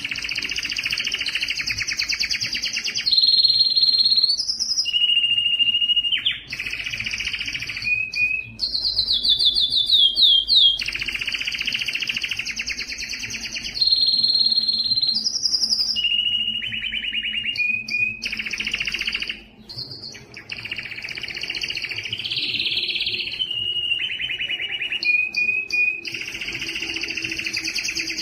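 Domestic canary singing a continuous song: long, fast rolling trills alternating with held single whistled notes, with a run of falling glides about nine seconds in and only brief pauses. It is the breeding-season song of a male canary.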